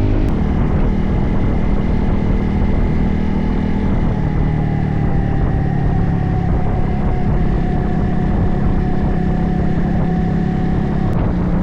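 Motorcycle engine running steadily while riding, its pitch easing down slightly about halfway through.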